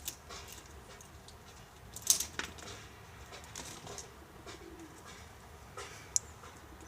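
Squirrel gnawing at a pine cone: sparse dry clicks and crackles of cone scales breaking, with a louder crack about two seconds in and a sharp tick near the end.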